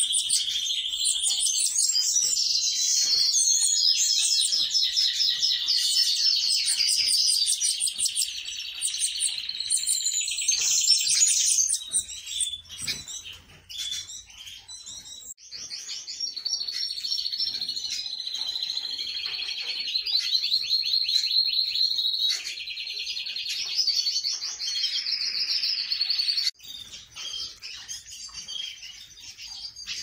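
Small caged finches singing: fast twittering trills and warbles, dense for most of the stretch, thinning out about halfway through and again for the last few seconds.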